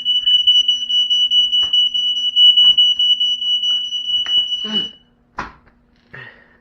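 Old smoke detector sounding its alarm after being set off by smoke: one loud, steady, high-pitched tone that cuts off suddenly about five seconds in, followed by a couple of short knocks.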